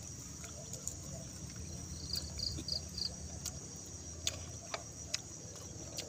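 Steady high-pitched insect drone, with a quick run of four chirps about two seconds in. Over it come a few sharp crunches and clicks from chewing fried breadfruit chips and handling a ceramic-lined mug.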